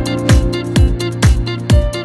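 Background music with a steady thumping kick drum, about two beats a second, over sustained synth-like notes.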